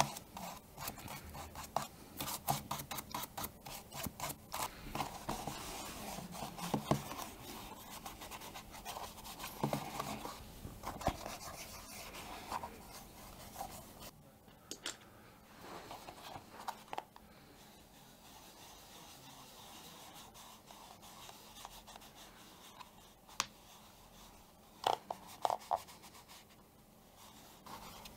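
A bristle brush scrubbing an old leather camera case in quick scratchy strokes, then a cloth rubbing over the leather more softly, with a few sharp light clicks near the end.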